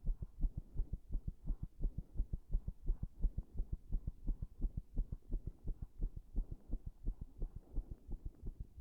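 A human heart beating fast, a quick run of low lub-dub thumps several times a second. The uploader presents it as an arrhythmia brought on by compression.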